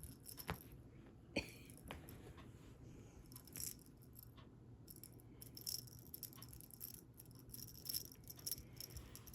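Faint, scattered light rattling and jingling of a cat toy being jiggled during play, with a few soft clicks.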